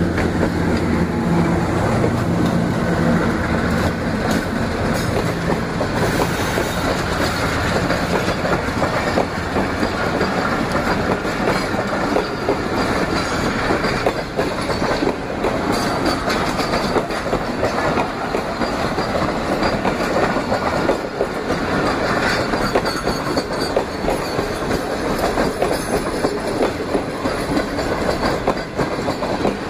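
Pakistan Railways AGE-30 diesel locomotive passing close by, its engine drone fading over the first few seconds. Then the steady clickety-clack of passenger coaches rolling past on the rails.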